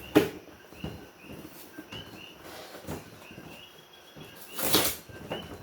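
Short high chirps repeating about twice a second in the background, with a sharp click near the start and a loud, noisy rustle about four and a half seconds in.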